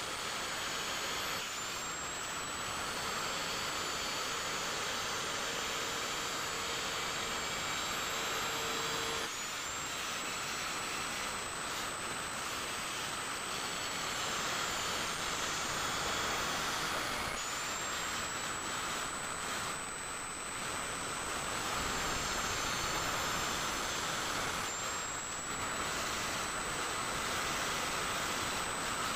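Electric angle grinder running with its disc grinding the steel of a kukri blade: a steady high motor whine over the hiss of grinding, the pitch dipping slightly a few times as the disc bears on the metal.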